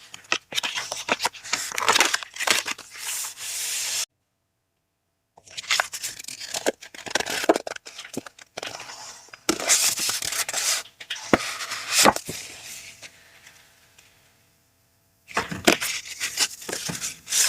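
Paper packaging being handled during an unboxing: rustling, crinkling and tearing in irregular bursts, broken twice by a second or so of dead silence.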